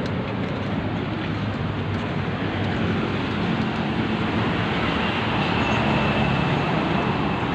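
Steady rumble and hiss of road traffic and moving air while riding a bicycle along a busy road. A faint high steady whine comes in about halfway through.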